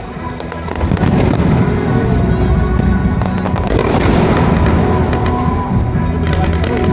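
Fireworks and firecrackers going off in a dense, rapid crackle, getting louder about a second in, with music playing under them.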